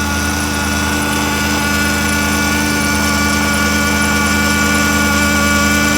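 Volvo B8444S 4.4-litre V8 idling on a cold start while its power steering pump hums, a steady whine of several tones over the engine's drone. The hum comes from air being drawn into the power steering system through the pump's fluid supply hose.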